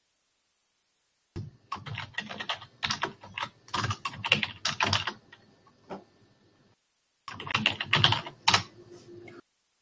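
Typing on a computer keyboard: quick runs of key clicks that start about a second and a half in, thin out around the middle, and return for a second burst near the end.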